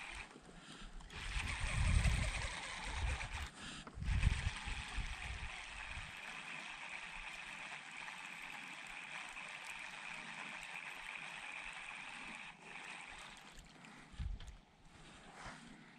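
Wind buffeting the microphone in two low gusts, about two and four seconds in, over a steady hiss that stops about thirteen seconds in.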